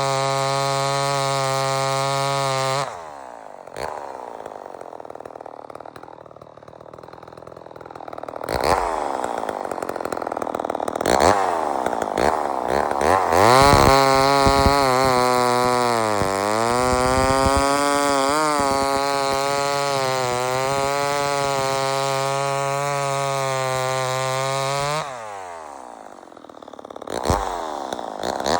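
Poulan 245A two-stroke chainsaw revving hard, dropping back to idle about three seconds in and again near the end before revving up once more. Through the long loud middle stretch its pitch sags and recovers.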